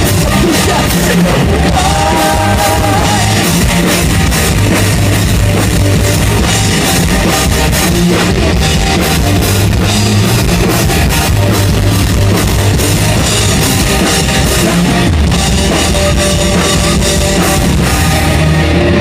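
Punk rock band playing live and loud: electric guitars, bass and drum kit, with some singing.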